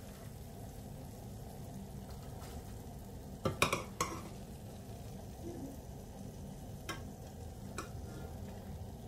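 Golden-fried boondi in hot oil sizzling steadily in a small stainless steel saucepan while a metal spoon stirs and scoops it out. The spoon clinks against the pan in a quick cluster about three and a half seconds in, then taps twice more faintly near the end.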